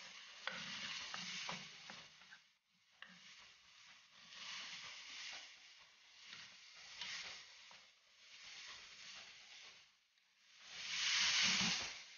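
Ground meat and sliced bitter melon sizzling as they are stir-fried in an aluminium wok, with a wooden spatula scraping and knocking against the pan. The sizzle comes in swells, breaks off briefly about two and a half seconds in, and is loudest near the end.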